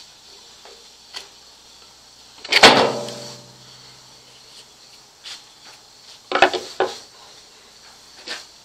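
Hand handling of a drill press and a screwdriver while the machine is stopped and readied for a deeper cut. One sharp metallic clank rings briefly about two and a half seconds in, and a few lighter knocks and clicks follow around six to seven seconds in.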